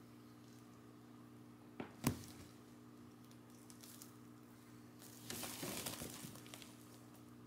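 A kitten scuffling against a woven rush mat and frayed cloth: two sharp taps about two seconds in, then a second or so of crinkly rustling as the mat shifts, over a faint steady hum.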